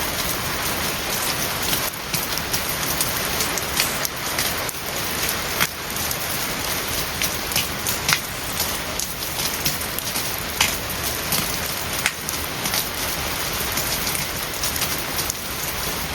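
Steady heavy rain falling on a hard surface, an even hiss with many individual drops tapping sharply throughout.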